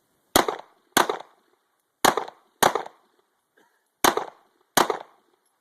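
Handgun fired as three double-taps: six shots in pairs about two-thirds of a second apart, the pairs about a second and a half apart. This is a two-round response, two shots on each threat.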